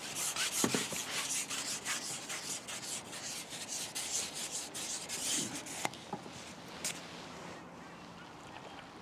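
Carbon fishing pole being shipped back hand over hand, a run of rubbing, scraping strokes as it slides through the hands, easing off after about six seconds with a couple of sharp clicks.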